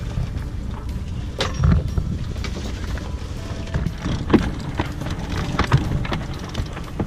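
Wind and water rumbling on the microphone aboard a sailboat, with a few irregular sharp clicks and knocks from a sheet winch as its handle is worked.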